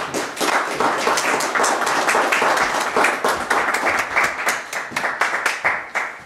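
Audience applauding with fast, dense hand clapping that starts at once and stops abruptly near the end.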